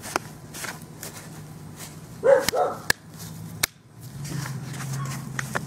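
A dog barks twice in quick succession, short barks about two seconds in. Sharp plastic clicks sound now and then as paint pads are snapped under the plastic tabs of a paint-pad holder.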